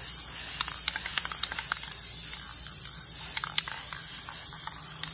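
Outdoor background noise: a steady hiss with many short, high ticks scattered irregularly through it.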